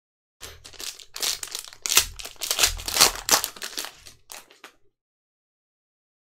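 Crinkling and rustling of a trading-card pack's wrapper and the cards inside being handled: a dense run of small crackles starting about half a second in, stopping a little before five seconds.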